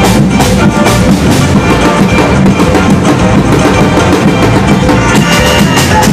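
Batucada percussion ensemble playing a dense, driving drum rhythm with many strikes close together.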